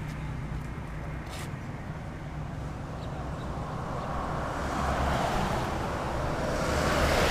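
Road noise from a ride in traffic: a steady low engine hum under a rush of wind and tyre noise, which grows louder over the last three seconds.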